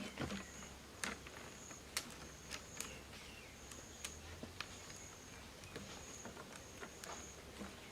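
An insect calling in short, high-pitched chirps about once a second, with scattered faint clicks and knocks.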